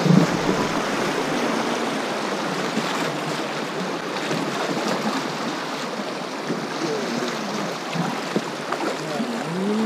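Water rushing steadily over a shallow, rocky river riffle, heard from an inflatable boat drifting through it.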